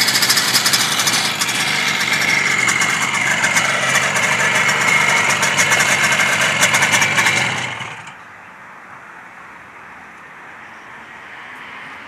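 1953 Adler M250's two-stroke twin engine running at idle, then shut off about two-thirds of the way through, after which only quiet background remains.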